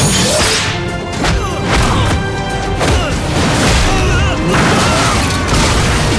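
Action-film sound mix: music under a fight's sword swishes, blows and crashes, with sharp hits recurring throughout.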